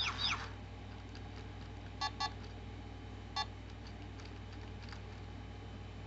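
Chirpy-Chi robot bird's electronic sounds: a quick pair of falling chirps at the start, then two short beeps about two seconds in and a single beep a little later.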